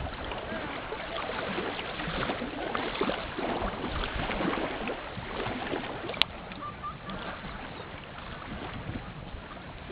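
Small wood fire crackling in a B-6君 compact folding fire stand, with a steady run of small ticks and one sharp pop about six seconds in.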